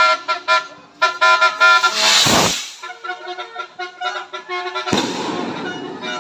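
Music with held notes, cut by two loud noisy bursts from firecrackers going off: one about two seconds in, and a sharper one about five seconds in that fades over a second or so.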